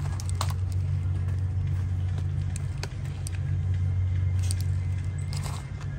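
A steady low rumble with scattered light clicks and taps.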